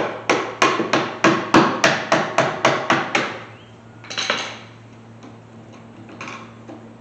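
A hammer tapping around the metal lock ring of a fuel pump sending unit on a steel truck fuel tank to knock it loose, about a dozen sharp metallic strikes at roughly four a second. Then a brief scraping noise and a couple of lighter knocks.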